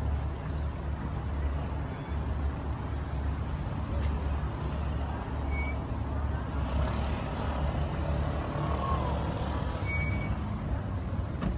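Street traffic: a steady low rumble of vehicle engines, swelling for a few seconds about two-thirds of the way through as traffic passes.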